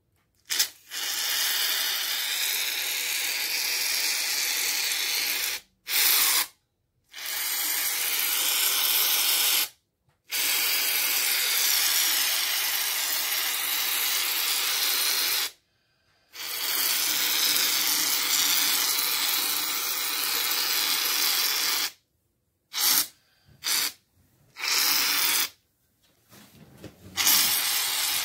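Aerosol foam can hissing as foam is sprayed out in several long sprays of a few seconds each, broken by short pauses, then a few short bursts and a more sputtering spray near the end.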